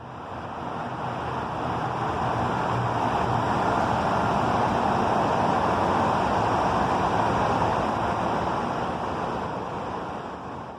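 Rushing vehicle noise that swells over the first few seconds and eases off near the end, with a low engine hum underneath.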